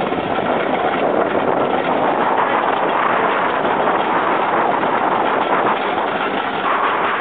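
Steady rushing noise of a suspended roller coaster train running at speed along its track, mixed with wind over the rider's microphone.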